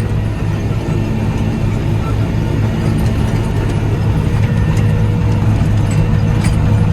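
Krone BiG M self-propelled mower running steadily under load, its engine and cutting drive giving a constant low drone with a faint steady whine above it, as it cuts a heavy grass crop.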